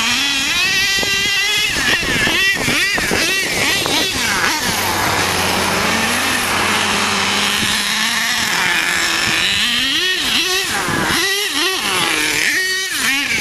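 Nitro engine of an HPI Savage X RC monster truck, a K5.9, revving up and down in quick repeated bursts as the truck is driven, with a steadier drone for a few seconds in the middle.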